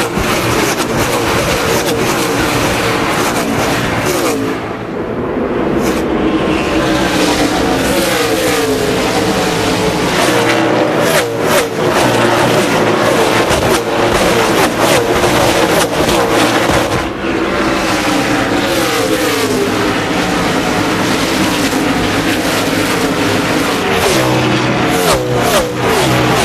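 A pack of NASCAR Winston Cup stock cars racing at full throttle, their 358-cubic-inch V8 engines overlapping and rising and falling in pitch as cars pass close by, heard from trackside microphones.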